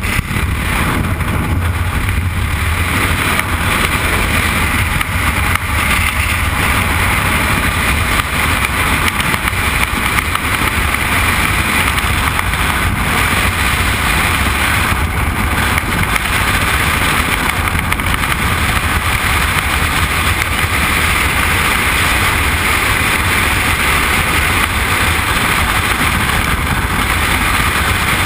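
Loud, steady freefall wind buffeting the camera's microphone, a continuous rushing noise from falling through the air at terminal speed.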